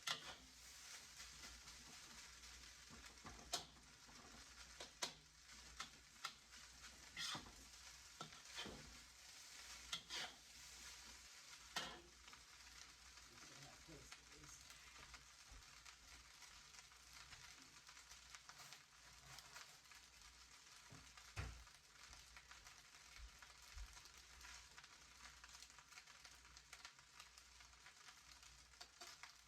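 Fried rice sizzling faintly in a pan while it is stirred, with a steady hiss and a series of sharp stirring strokes of a utensil against the pan. The strokes come every second or two at first, and there is one more, louder, a little after the middle.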